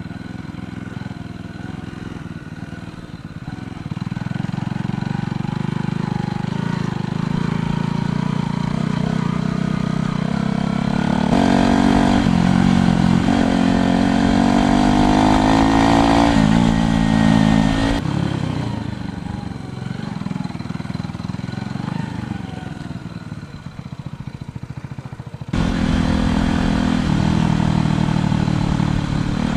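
125cc motorcycle engine running under way, its pitch rising and falling with the throttle, over steady wind and road noise. The sound jumps abruptly about 11, 18 and 25 seconds in.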